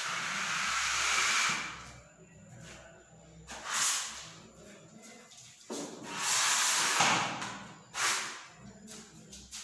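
A texturing tool is dragged down a wall through Royale Play Torrent paint with a scraping hiss. There is one long stroke at the start, a short one about four seconds in, another long stroke about six seconds in, and a short one near the end.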